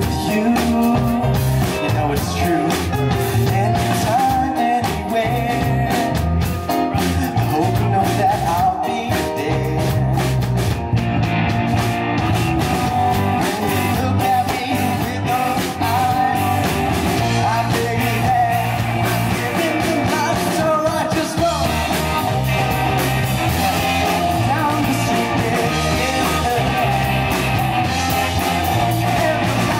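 Live indie rock band playing an original song: electric guitar, bass guitar, drum kit and keyboard, with a lead vocal.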